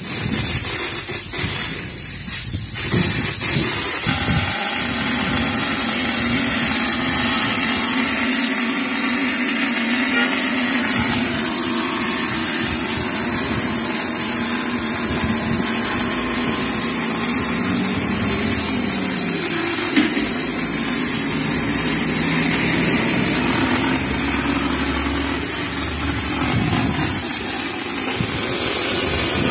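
Compressed air hissing steadily through a hopper spray gun as it sprays textured plaster onto a wall, over a motor running underneath.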